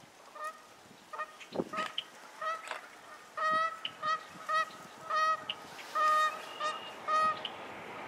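Waterfowl honking: a run of short, repeated honks, roughly two a second, faint at first and louder from about three and a half seconds in.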